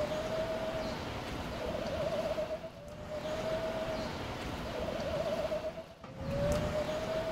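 Looped end-card sound: a single hooting tone that slides slowly up, then wavers in pitch, the pattern repeating about every three seconds over a low rumble.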